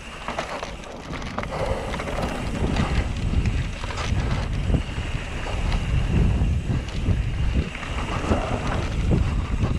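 Mountain bike riding fast down a dirt trail: wind buffeting the microphone, with the bike rattling and knocking over bumps.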